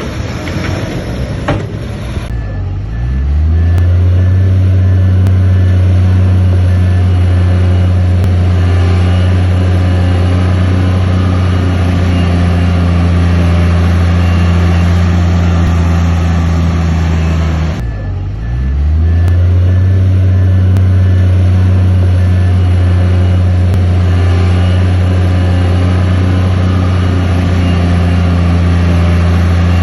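Heavy diesel engine of earthmoving equipment running loud, revving up about two seconds in and holding high, then dropping and revving up again about two-thirds of the way through. A faint, evenly repeating high beep sounds with it.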